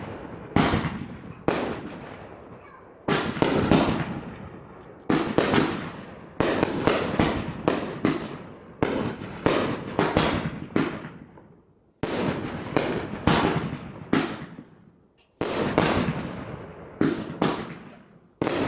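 Aerial fireworks bursting overhead: a rapid, irregular series of sharp bangs, each trailing off with a fading echo, with brief lulls about twelve and fifteen seconds in.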